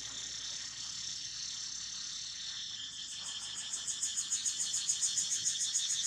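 Insects calling with a steady high hiss. About three seconds in, a louder, rapidly pulsing insect call joins, at about seven pulses a second.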